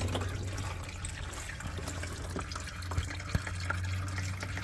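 Transmission fluid trickling and dripping from a Ram 1500 EcoDiesel's transmission into a drain pan, with a few faint ticks and a steady low hum underneath.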